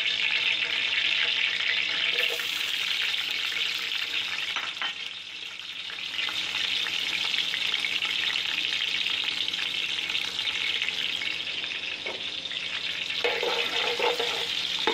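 Hot cooking oil sizzling steadily in a pot, with sliced onions frying in it.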